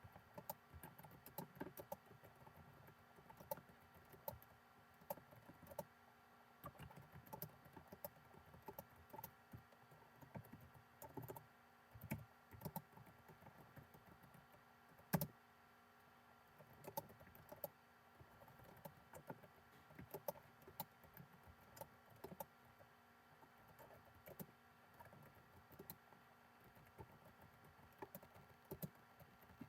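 Faint, irregular clicking of a computer keyboard being typed on, with one louder click about fifteen seconds in, over a faint steady electrical hum.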